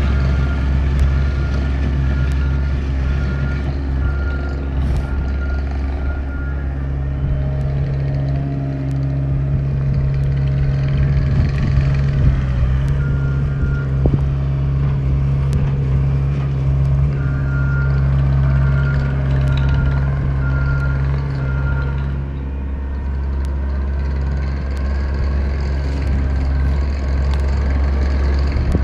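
Gehl 185 skid steer's engine running under work, its note stronger through the middle, with its reverse alarm beeping steadily for the first few seconds and again for several seconds past the middle.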